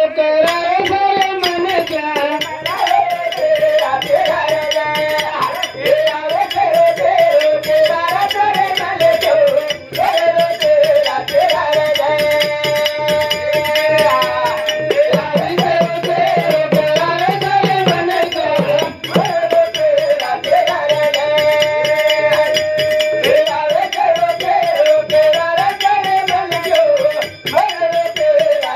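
Banjara devotional bhajan sung by men's voices, with winding melodic lines and long held notes, over hand percussion with a jingling rattle keeping a fast steady beat.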